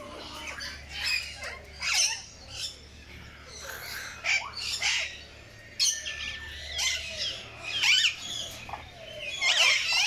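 Caged parakeets and parrots calling: a steady run of short, high squawks and chirps, one after another, some rising or falling in pitch.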